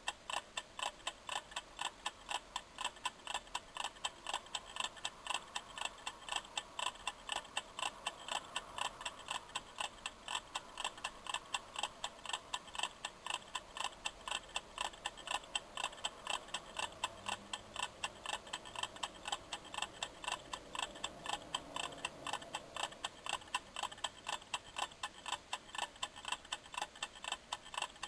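Kitchen timer ticking steadily as it counts down, a quick, even run of sharp ticks.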